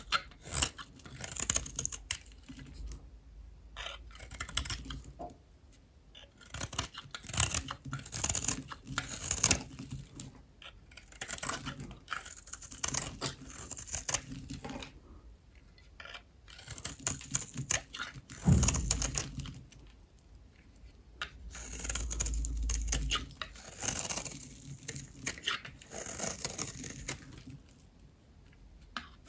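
A blade cutting through bars of dry soap: crisp crackling and scraping as the brittle soap gives way, in clusters of cuts with short pauses between them.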